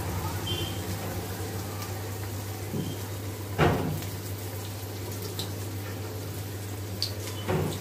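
Bonda batter deep-frying in a kadai of hot oil: a steady sizzle and bubbling, with two brief louder sounds about three and a half seconds in and again near the end.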